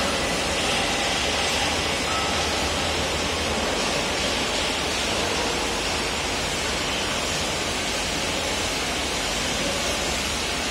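Steady, even machinery noise in a large factory hall, with a constant low hum underneath and no distinct knocks or changes.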